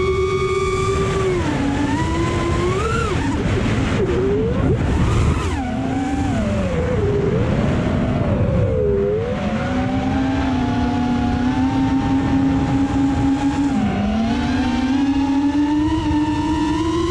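FPV quadcopter's brushless motors whining, the pitch following the throttle: a series of dips and swoops about three to nine seconds in, then a steady hum that climbs a little near the end. Under it runs a low rush of wind noise.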